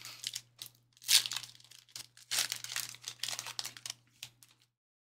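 Foil wrapper of a Panini Prizm basketball retail pack being torn open and crinkled by hand, a run of sharp crackling bursts, the loudest about a second in; it stops shortly before the end.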